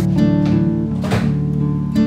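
Background music: acoustic guitar playing plucked notes and chords.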